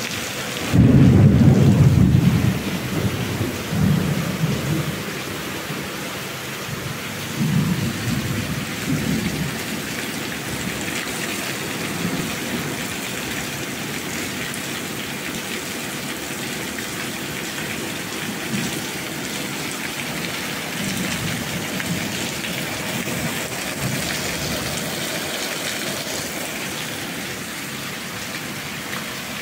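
Steady rain with rolls of thunder; the loudest rumble comes about a second in, with weaker ones a few seconds later.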